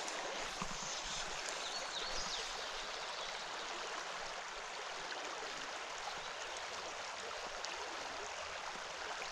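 Steady rush of river water flowing over a rippled, shallow stretch around the canoe.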